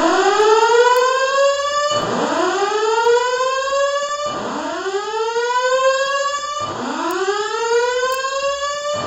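Building fire alarm voice evacuation system sounding its whoop tone: four loud rising sweeps, each about two and a half seconds long, repeating back to back. This is the evacuation tone played between the recorded "may I have your attention" fire emergency messages.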